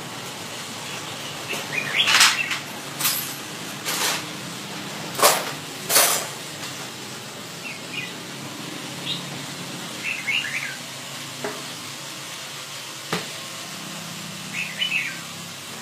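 Red-whiskered bulbul giving short, scattered chirps, with several sharp, noisy bursts in the first half that are louder than the chirps.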